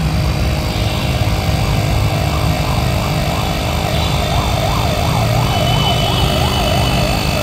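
Portable cordless tyre inflator's compressor running steadily as it pumps up a scooter tyre, the pressure reading climbing. From about halfway through, a warbling tone rises and falls two to three times a second over it.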